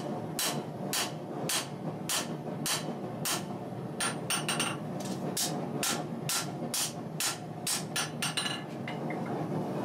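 Hand hammer forging a red-hot steel knife blade on an anvil, about two blows a second, with quicker runs of lighter ringing strikes about four seconds in and again near the end. A steady low rushing noise runs underneath.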